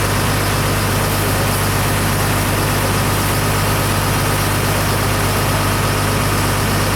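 Newly installed yacht generator running at a steady speed, a constant low hum with a steady mechanical noise over it.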